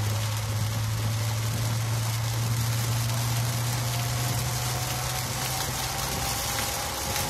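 Heavy rain on a car, heard from inside the cabin: a dense steady hiss of rain and road spray over a low steady hum from the car that fades about six seconds in.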